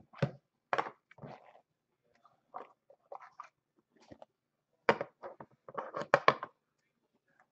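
Thick trading cards and their small white cardboard box being handled: short scrapes, taps and crackles as the cards are slid out and set down, most of them in a cluster about five to six seconds in.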